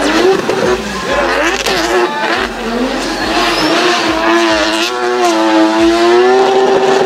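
Drift car's engine revving hard, its pitch swinging up and down with the throttle, then held high and nearly steady for the last few seconds, with tyres squealing as the car slides sideways.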